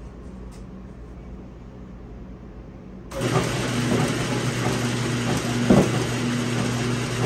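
Paint mixing bank switched on about three seconds in: its motor starts and runs steadily with a hum, driving the stirring lids of the rows of toner cans. A brief knock comes near six seconds.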